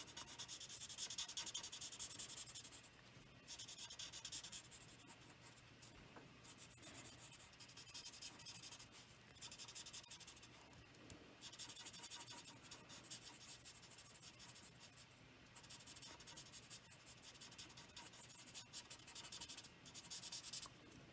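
Stampin' Blends alcohol marker tip rubbing over paper in repeated short colouring strokes, a faint scratchy hiss that pauses briefly every few seconds.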